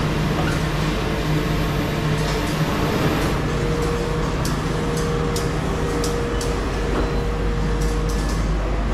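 Steady machinery hum of a garment-finishing floor, from pressing machines, vacuum ironing tables and ventilation, with a low drone throughout. A thin higher tone joins about a third of the way in, along with scattered light clicks.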